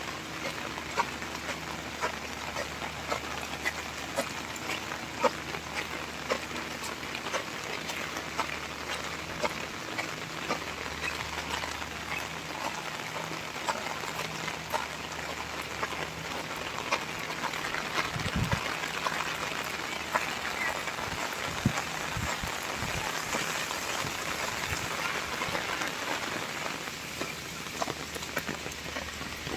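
Steady rain falling, with many individual drops ticking sharply on nearby surfaces. A few low thuds come a little past halfway.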